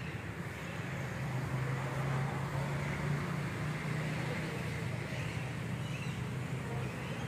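Outdoor ambience dominated by a steady low hum, with no distinct events.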